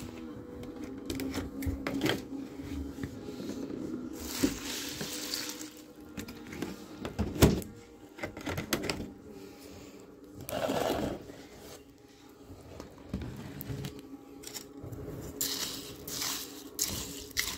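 Handling sounds of a bowl of cereal being prepared: scattered small clicks and knocks with a few brief rustling, pouring-like stretches, over a faint steady hum.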